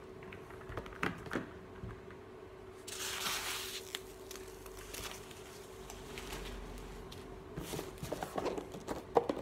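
Packaging being handled in an unboxing: a few light clicks and knocks, a burst of rustling about three seconds in, and a run of small clicks and knocks near the end, over a faint steady hum.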